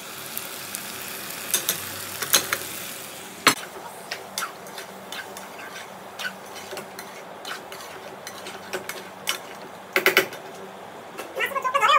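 Cooking utensil stirring in a hot pan, with irregular clinks against the metal over frying sizzle; the ground spices for the kadai chicken have just gone in to fry. The sizzle is strongest in the first three seconds or so.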